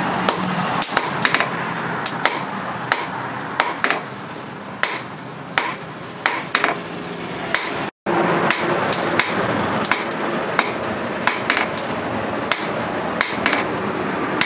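Hand hammer striking a red-hot leaf-spring steel blade on a small anvil, sharp metallic blows at an irregular pace of about two a second.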